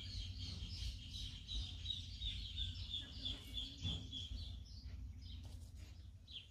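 A bird chirping a rapid series of short, high notes that stops about two-thirds of the way through, over a steady low rumble.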